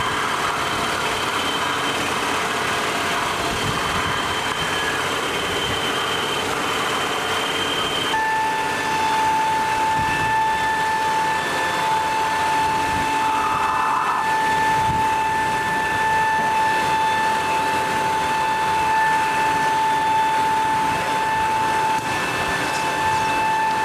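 Machinery running steadily, with a constant high whine joining about eight seconds in.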